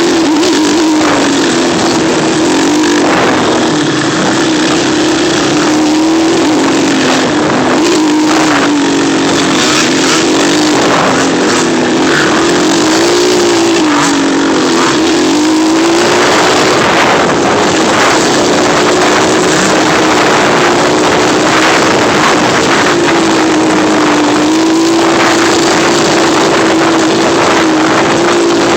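Off-road quad or dirt bike engine running hard along a trail, loud and continuous, its pitch rising and falling as the throttle opens and closes.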